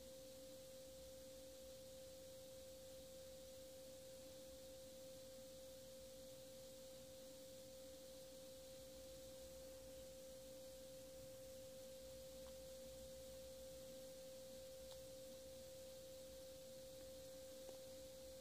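Near silence, with a faint steady pitched tone that never changes over a low hiss.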